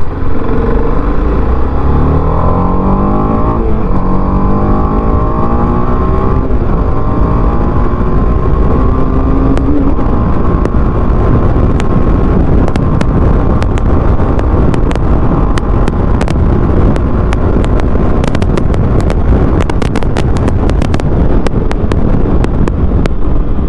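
TVS Apache RR310's single-cylinder engine revving hard under full acceleration, its note climbing through the gears with upshifts in the first few seconds, then running steady at about 107 km/h. From about halfway on, heavy wind noise with frequent buffeting clicks covers it.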